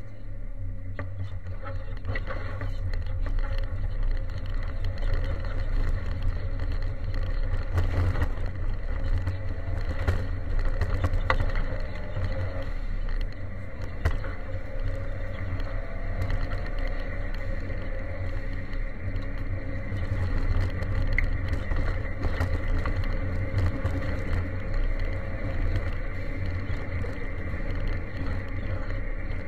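Ford Sierra Cosworth 4x4's turbocharged four-cylinder engine running hard, heard from inside the car on a gravel road, with stones and gravel clattering against the underbody in sharp clicks.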